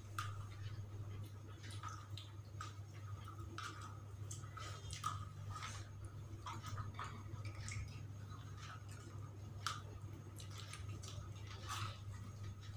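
Someone eating fried chicken and rice by hand: quiet chewing and small wet mouth and finger sounds, heard as irregular soft clicks, over a steady low hum.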